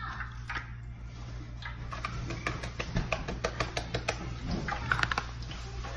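Paper gravy-mix packets crinkling and being tapped as the powder is shaken into a metal saucepan: a run of small rustles and clicks, busier in the second half, over a low steady hum.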